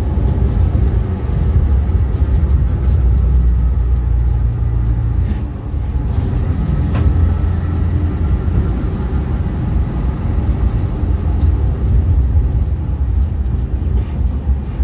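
VW single cab pickup on the move, its air-cooled flat-four running through the stock muffler under a steady low rumble of road and driving noise. The level dips briefly about five and a half seconds in, then carries on.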